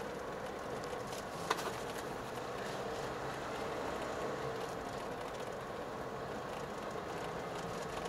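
Steady road and engine noise inside a moving car's cabin, with one short click about a second and a half in.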